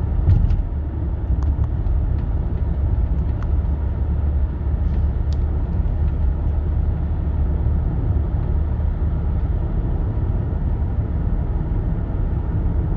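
Interior cabin noise of an Audi A6 C5 Allroad 2.5 TDI V6 diesel with tiptronic automatic, cruising steadily in drive at about 75 km/h and about 1,700 rpm: a steady low drone of engine and road noise. A few faint ticks sound in the first half.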